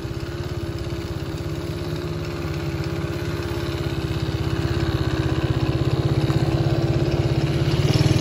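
Motorcycle engine idling steadily with an even, rapid pulse, growing louder in the second half.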